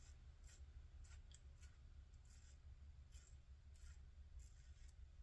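Faint short scrapes of a Merkur 34C double-edge safety razor with a new Astra blade cutting through lathered stubble, about one or two strokes a second.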